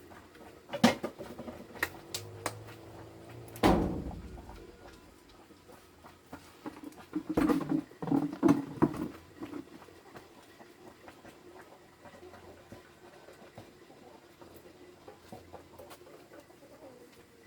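Scattered knocks and clatters, as of objects being handled, with a sharp knock about four seconds in and a busier run of clatters a little after the middle, then quieter.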